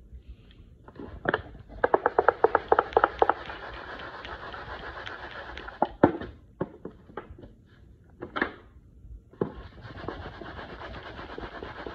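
Hands pressing and turning fish fillets in dry breading in a disposable aluminium foil pan: scraping and rustling against the foil, with a run of quick crinkly taps a couple of seconds in and scattered single taps later, then a short lull before the rustling resumes.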